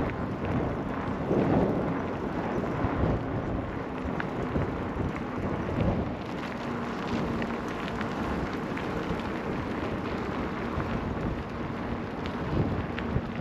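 Wind buffeting the microphone: a steady rumbling rush with no pitch.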